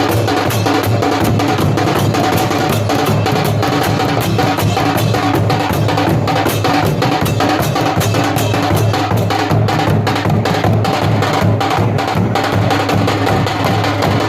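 Drums played fast and continuously, many sharp strokes a second over a steady low drum tone, the kind of drumming that marks the start of Muharram.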